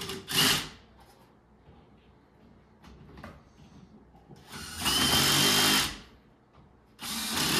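Cordless drill driving screws into melamine panels in short runs: a quick double blip at the start, then two runs of about a second and a half, the second near the end, the motor's pitch rising as each run spins up.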